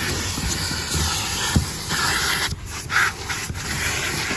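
Car wash vacuum running, its suction rushing through a corrugated hose as the nozzle works over a fabric car seat. A few low knocks come through, and the rushing dips briefly a little past halfway.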